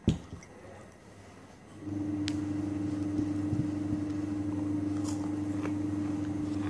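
A steady electrical hum from a machine or appliance switches on about two seconds in and cuts off near the end. A sharp click comes right at the start, with faint sounds of eating by hand underneath.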